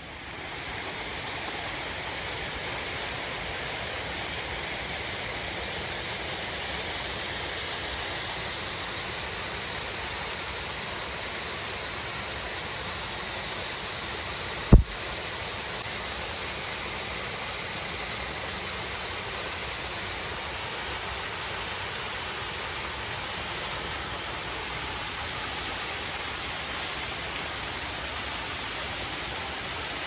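Steady rushing noise, with one sharp low thump about halfway through.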